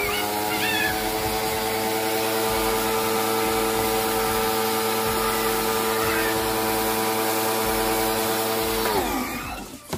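Black+Decker electric pressure washer running with the trigger held, spraying soapy water through a foam-cannon bottle. The motor rises in pitch as it starts, runs at a steady pitch over the hiss of the spray, then falls away as it winds down about nine seconds in when the trigger is let go.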